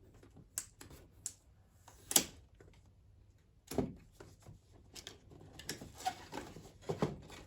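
Hands handling hard objects: scattered light clicks and taps, with a sharp click about two seconds in and a duller knock just before four seconds.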